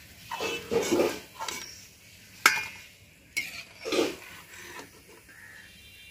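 Slotted metal skimmer scraping and clinking against a wok and a steel colander as fried palm fritters are lifted out of the oil and tipped into the colander, with a sharp metal knock about two and a half seconds in and another a second later.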